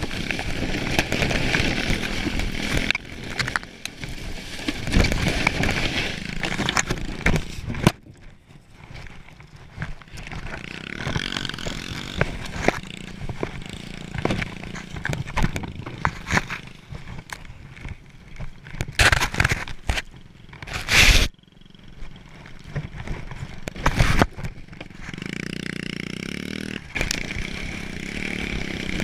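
Small pit bike engine running as it tows a plastic sled over snow, mixed with the sled scraping and hissing across the snow. The engine sound drops away about eight seconds in, leaving rough scraping and knocks with a sharp loud burst about 21 seconds in. The engine is heard steadily again near the end.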